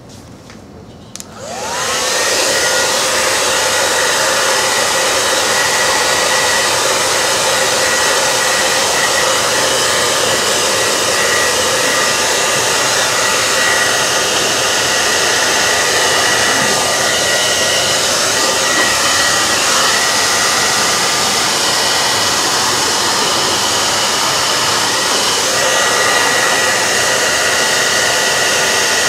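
Handheld hair dryer switched on about a second in, its whine rising as the motor spins up, then blowing steadily with a constant whine over the rush of air, drying a wet watercolor wash.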